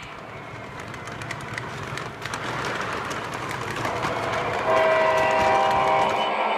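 O scale model diesel locomotive running along the track with a rumble and fine rail clicks, then about two-thirds of the way in its sound system sounds a horn: a steady chord of several notes, the loudest thing heard, held for about a second and a half.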